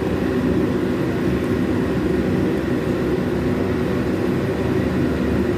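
Steady, unbroken low mechanical drone of running machinery.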